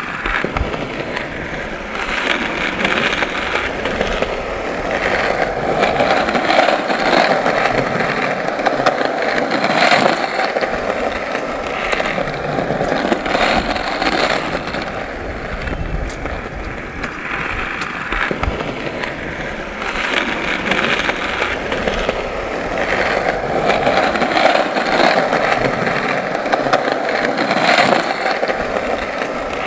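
Skateboard wheels rolling, a continuous rough rolling noise that swells and fades every few seconds, with scattered sharp clicks.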